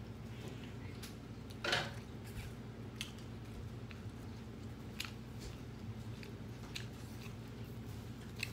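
Quiet eating sounds: scattered soft clicks and smacks of chewing and of hands working food, with one slightly louder smack about two seconds in, over a steady low hum.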